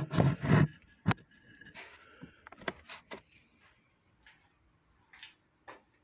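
Handling noise and footsteps: a burst of thumps and scrapes in the first second and a sharp knock just after, as the camera is set in place, then scattered clicks, rustles and steps on a concrete floor that fade to near quiet.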